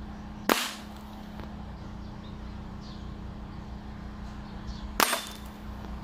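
Taurus dual-propellant pellet airgun firing two shots, each a sharp report, about four and a half seconds apart, run on high-pressure air from a 2,000 psi fill.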